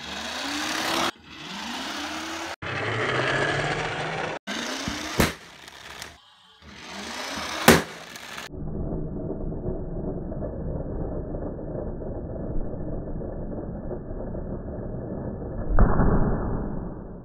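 Small plastic toy car rolling across a wooden floor, its wheels and drive whirring, broken into several short clips with a couple of sharp clicks. The second half is a duller, muffled rumble that swells briefly near the end.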